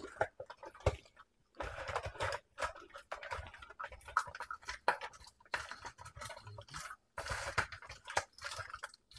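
A gloved hand tossing seasoned crab legs in a plastic bowl: wet squelching with hard crab shells clicking and knocking against each other, in irregular handfuls with short pauses.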